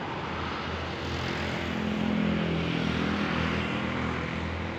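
Engine drone: a steady low hum under a humming tone that swells in about a second and a half in and fades near the end.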